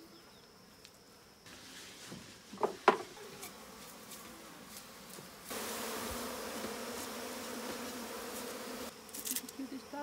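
Honeybees buzzing in a steady hum around an opened box hive, starting about five and a half seconds in and stopping shortly before the end. Earlier there is a single sharp knock, about three seconds in.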